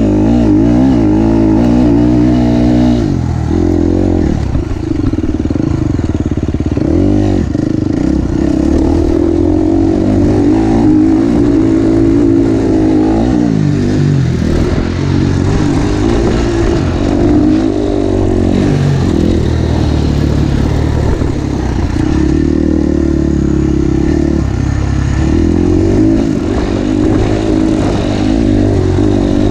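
KTM SX-F 350's single-cylinder four-stroke engine being ridden hard on a motocross track. It revs up and drops back again and again with throttle and gear changes, heard close up from the handlebars.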